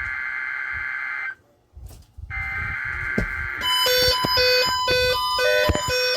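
NOAA Weather Radio SAME header: a loud, harsh digital data burst that cuts off about a second in. After a one-second gap the next burst of the header starts. From about three and a half seconds in, a run of rapidly changing electronic beeps at several pitches plays over it.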